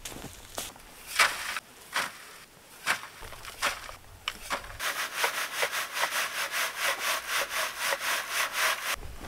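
Dirt being sifted by hand. First come a few separate shovel scrapes and throws of soil onto a sieve. From about five seconds in there is an even back-and-forth rasping, about four to five strokes a second, as a hanging sieve full of soil is shaken.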